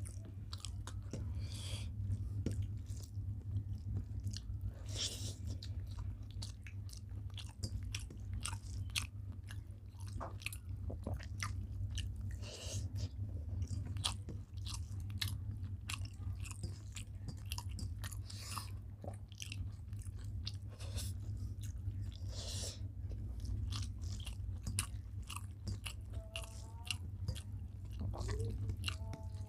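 Close-up chewing and mouth sounds of someone eating rice with vegetable curries, many small irregular clicks and smacks, over a steady low hum. A brief pitched wavering sound comes near the end.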